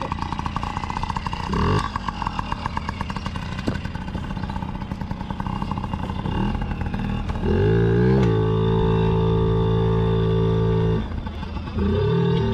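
Dirt bike engine running. It blips its revs up and back about a second and a half in. Later the revs climb in steps and hold steady for about three seconds, drop off briefly, then rise again near the end.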